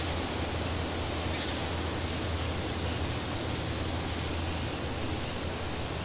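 Forest ambience: a steady, even rushing noise, with a couple of faint, high bird chirps about a second in and again about five seconds in.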